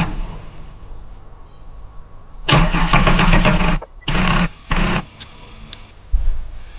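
Holden VX Commodore's 3.8-litre V6 turned over by the starter motor without catching: about a second of rhythmic cranking a couple of seconds in, then two short stabs of the starter. The engine cranks but won't start with the new fuel pump fitted, which the owner puts down to the fuel system needing bleeding or to too little fuel.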